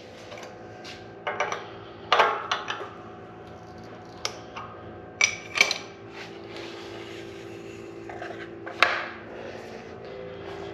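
Scattered sharp clanks and clinks of steel tools and parts handled in a shop press barrel vise, as a rifle barrel and its action wrench are freed and lifted out. A steady hum of shop machinery runs underneath.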